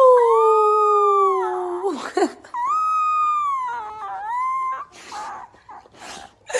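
A dog howling: two long howls, each held on one pitch and then sliding down, followed by a few short noisy sounds.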